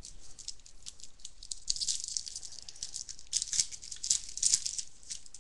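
Crinkling and crackling of a trading-card pack's foil wrapper being torn open and handled, a rapid irregular run of crisp rustles that grows denser and louder in the second half.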